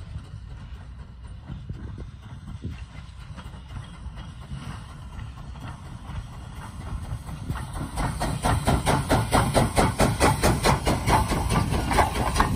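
Steam locomotive hauling passenger cars as it approaches and passes, a low rumble at first, then a fast, even rhythm of beats growing louder from a little past halfway as it draws close.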